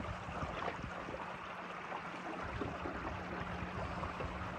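Water swishing and lapping along the hull of a small boat cruising at about 3.6 knots, with a faint steady hum from an ePropulsion Spirit 1 Plus electric outboard running at low power, about 215 watts. Very quiet.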